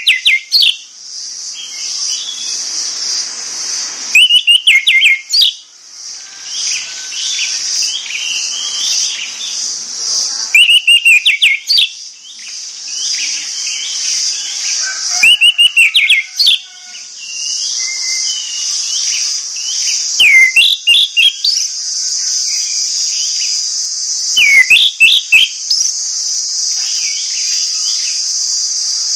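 Orange-headed thrush singing: loud bursts of rich whistled, warbling phrases about every five seconds, with softer twittering in between. A steady high-pitched hiss runs underneath.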